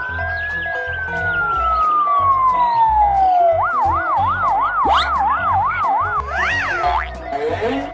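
Siren sound effect: a slow wail rising and then falling, followed about three and a half seconds in by a fast yelp of about four warbles a second and a quick high swoop near the end, over background music with a steady bass beat.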